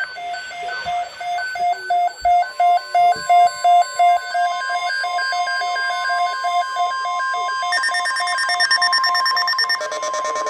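Overlapping NOAA weather radio alert tones from several radios out of sync. A rapid pulsed alarm beep, about three a second, is joined about two seconds in by the steady weather-radio warning alarm tone, which grows louder near eight seconds as the beeping stops. A faster pulsing beep pattern comes in near the end.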